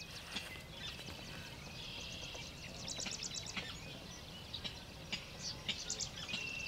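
Marsh birds calling: a busy mix of short chattering notes and trills, with a fast run of clicking notes about three seconds in.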